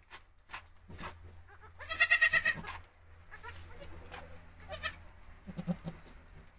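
Goat bleating: one loud, high, quavering bleat about two seconds in, followed by a few softer, shorter calls.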